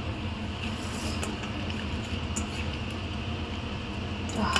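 A steady low rumbling hum, with a few faint light clicks as marinated fish pieces are turned by hand in a steel bowl.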